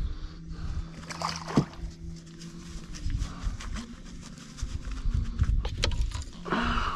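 Short clicks and knocks of fishing gear and a landing net being handled at a boat's side, over a low steady rumble.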